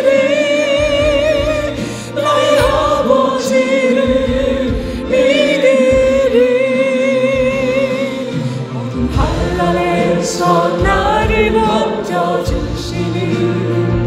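Korean gospel song: voices singing long held notes with vibrato over instrumental accompaniment.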